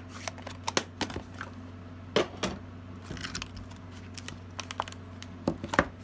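Hands handling stamping supplies: a string of light plastic clicks and knocks from ink pad cases and a clear plastic stamp case being set down and opened, the sharpest knock near the end, over a steady low hum.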